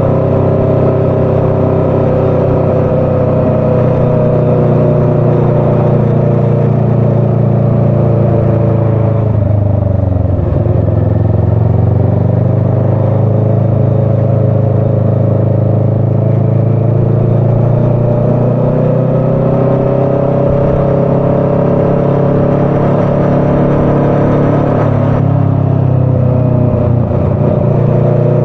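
Motorcycle engine running on the move: its note drops sharply as the bike slows about a third of the way in, then climbs again as it speeds back up, with another short dip and rise near the end.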